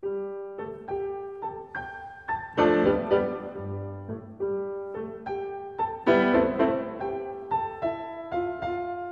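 Solo piano playing a slow melody, one struck note roughly every half second, each fading away, with louder, fuller chords about two and a half seconds in and again about six seconds in.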